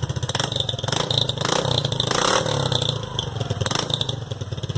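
Honda PCX 150 scooter's single-cylinder engine running through a new ML Competition 'estralador' aftermarket exhaust: a steady, rapid low exhaust pulse at idle, revved up briefly around the middle, with a few sharp cracks.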